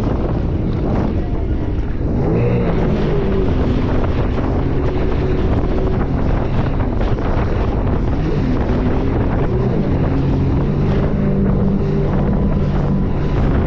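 A Sea-Doo Spark personal watercraft's three-cylinder engine running under way, its pitch rising and falling as the throttle and the hull's contact with the water change, under heavy wind on the microphone.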